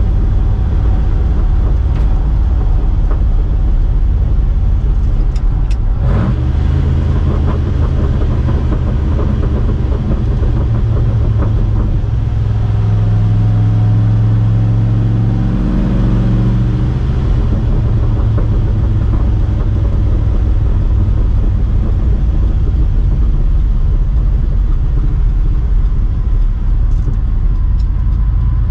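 A 1973 Ford F350 pickup on the move, heard from inside the cab: a steady low engine and exhaust drone with road noise. There is a short sharp knock about six seconds in, and around the middle the engine note swells and climbs, then eases back.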